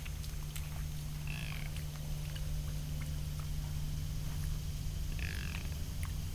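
White-tailed buck grunting, low short grunts, over a steady low hum from the trail camera. Two short higher-pitched calls come about a second in and about five seconds in.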